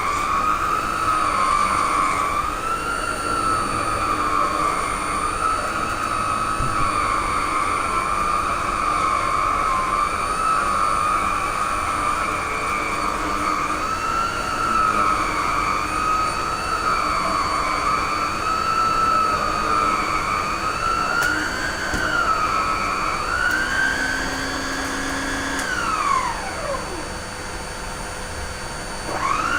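TriStar MG1 canister vacuum cleaner's motor running with a high whine that wavers slowly up and down in pitch. Near the end the pitch climbs, then the motor is switched off and winds down with a falling whine, and about three seconds later it starts up again with a rising whine.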